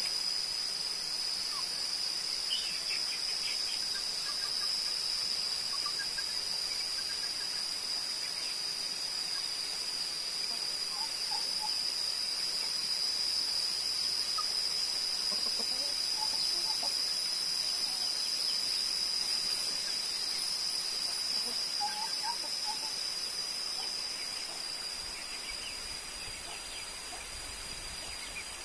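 A steady, high-pitched insect drone, with scattered faint bird chirps. The drone eases off over the last few seconds.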